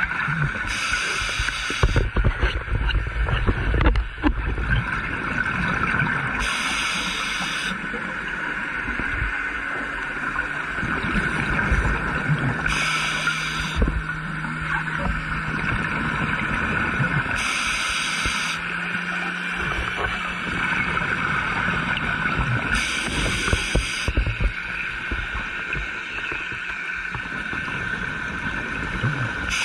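Scuba diver's regulator breathing underwater: a rush of exhaled bubbles about every five to six seconds, six in all, over a steady hiss.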